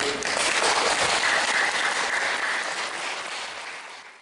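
Audience applauding. The applause fades away over the last second and then cuts off.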